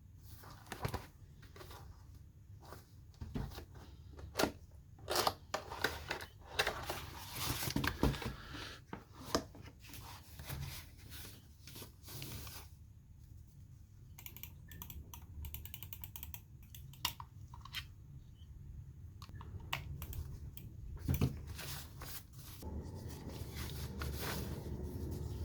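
Packaging being opened and a small portable wireless keyboard being handled: irregular clicks and taps with stretches of rustling.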